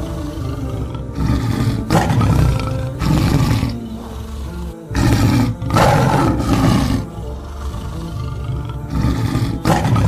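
A tiger roaring in a series of loud calls, then a pause of about two seconds and another call near the end, over background music.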